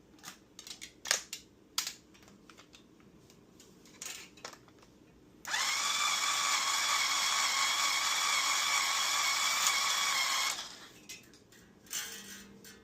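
Light clicks and taps of handling, then a small battery-powered motor spinning up and running at a steady whine for about five seconds, winding a guitar string onto its tuner post, before it stops.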